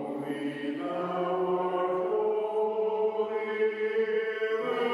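Choral music: voices holding long, sustained chords, the chord shifting about a second in and again near the end.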